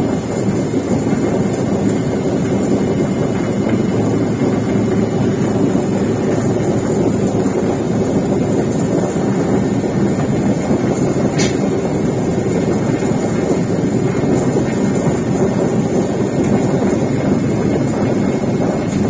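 Steady drone of a small aircraft's engine and rushing air, heard from inside the cabin, with one brief click about eleven seconds in.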